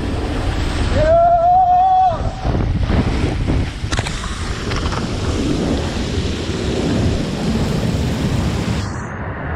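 Water rushing and a rider sliding down a fibreglass tornado water slide, heard as a steady loud rush of water and air on the camera's microphone. About a second in, a single held shout lasts about a second.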